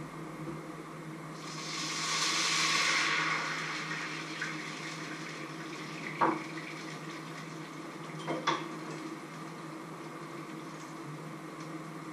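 Sizzling from a frying pan on the stove: a loud hiss that swells and dies away over about two seconds. Then a sharp metal clank and, two seconds later, a double clank of pans and utensils.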